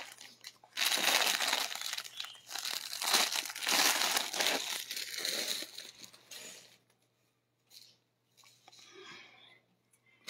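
Clear plastic packaging crinkling and rustling as a folded embroidered fabric border is pulled out of it. The crinkling stops a little past halfway, leaving only a faint rustle.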